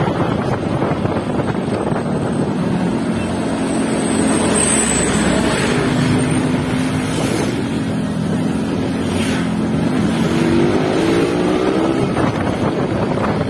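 Yamaha RX-King 2007's two-stroke single-cylinder engine running under way at a steady pitch, then climbing in pitch over the last few seconds as the bike accelerates. Wind noise on the microphone runs under it.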